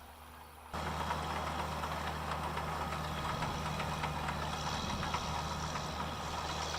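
Engine of farm machinery running steadily with a dense mechanical rattle, starting abruptly under a second in after a faint low hum.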